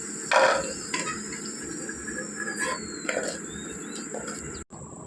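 Crickets trilling steadily in the background. A short loud knock comes about half a second in, and a faint falling whistle a little later. The trilling cuts off abruptly near the end.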